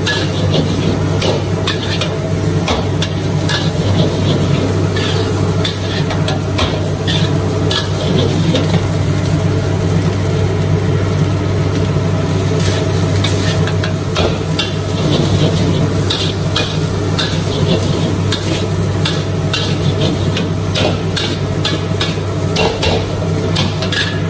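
Metal spatula scraping and clanking against a wok in quick, irregular strokes as fried rice is stir-fried and sizzles, over a steady low hum.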